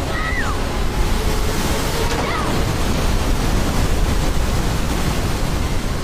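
Loud, steady rushing of churning whitewater rapids. Two short falling cries break through, one right at the start and one about two seconds in.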